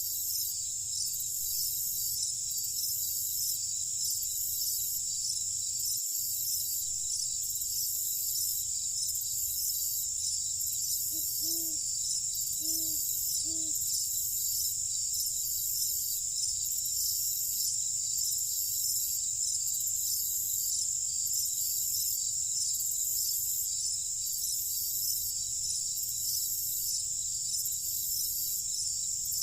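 Crickets chirping steadily in a dense high-pitched chorus with an even pulse about once a second. Near the middle, three short, low, pitched calls sound in quick succession.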